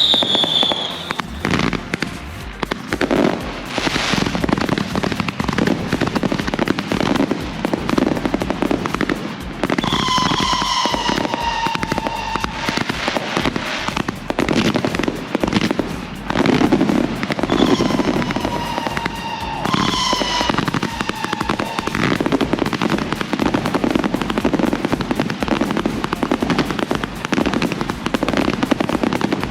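Consumer fireworks cakes and aerial shells going off in a dense barrage, a continuous run of crackling and bangs. Twice a slowly falling whistling tone rises above it for a couple of seconds.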